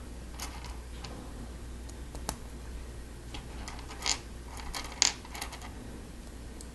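Plastic Lego Technic pieces clicking and rattling as they are handled and pressed together: a scattering of small, sharp clicks, the loudest about five seconds in.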